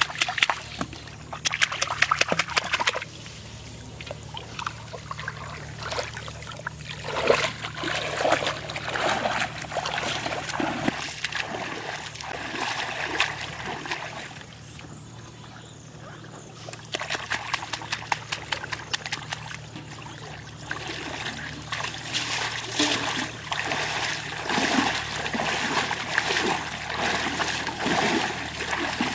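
Shallow muddy floodwater splashing and sloshing as hands slap and scoop at the surface, in bursts of quick splashes with quieter gaps between them. Near the end, legs wade through the water.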